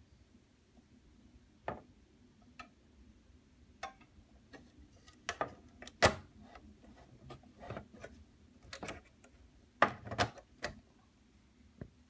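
Small plastic clicks and taps of a scale-model truck hood being worked on its scratch-built hinges and latch, with a sharp snap about six seconds in as the hood shuts, and a quick cluster of clicks near ten seconds.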